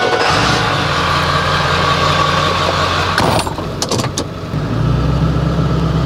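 Straight-piped 7.3-litre Powerstroke V8 turbo diesel of a 2000 Ford F-250 starting up and idling, heard from inside the cab. There are a few sharp clicks about three and a half seconds in. The idle grows louder and deeper about four and a half seconds in.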